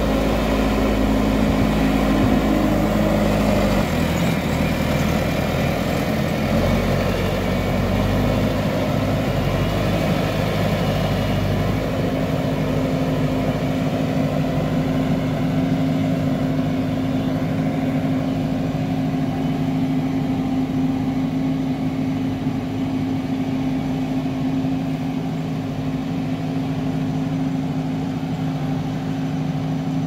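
JCB backhoe loader's diesel engine working as the machine pushes soil with its front bucket. The engine note shifts over the first dozen seconds, then settles to a steady pitch.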